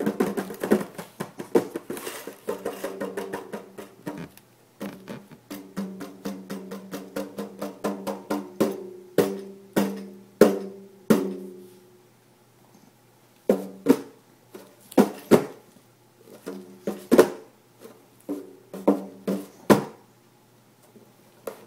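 Rawhide-headed hand drum slapped by hand in an irregular run of strikes, many of them ringing on briefly, with short quiet spells about halfway through and near the end.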